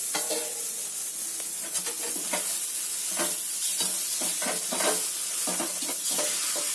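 A steel spoon stirring and scraping drumstick pieces through a thick sesame paste in a steel pan, with irregular scrapes and knocks several times a second. A steady sizzle of frying runs underneath.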